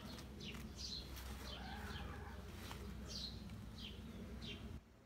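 Small birds chirping: short, high, falling chirps at irregular intervals, over a low steady hum that cuts off suddenly near the end.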